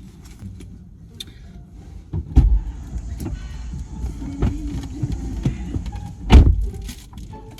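Low rumble with two heavy thumps, about two and a half and six and a half seconds in.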